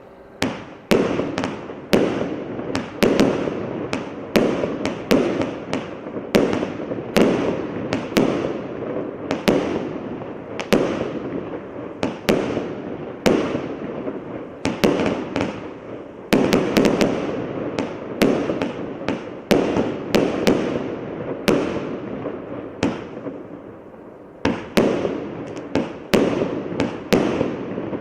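A consumer firework cake firing shot after shot, with sharp reports about one to two a second and each one trailing off into a rushing decay before the next.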